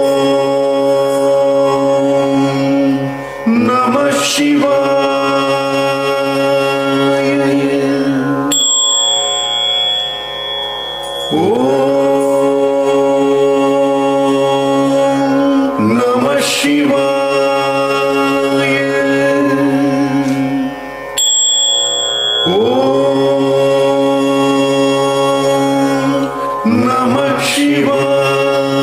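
Carnatic music accompanying a Bharatanatyam dance: long held notes, each sliding up into pitch, starting afresh every four to six seconds.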